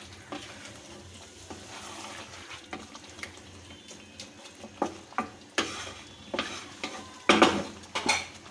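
Mutton curry with potatoes sizzling in a pan as a spatula stirs and scrapes it during sautéing. The scraping strokes come more often and louder in the second half, loudest near the end.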